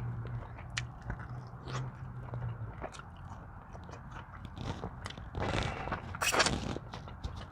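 A person chewing and biting food close to the microphone, with wet mouth clicks throughout and two louder crunching, rustling stretches near the end.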